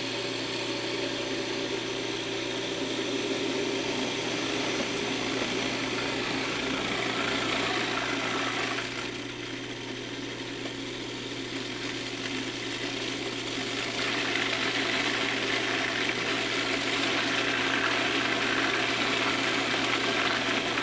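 Decades-old Cuisinart food processor motor running steadily, blending walnut pesto while olive oil is drizzled in through the feed tube. It keeps a constant hum, which drops a little about nine seconds in and picks up again about five seconds later.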